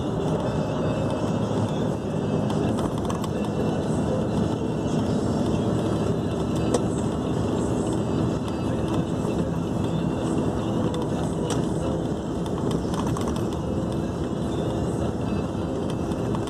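Steady engine and road noise from a moving vehicle heard from inside, running at about 60 km/h over a rough, badly surfaced road, with an occasional brief knock or rattle.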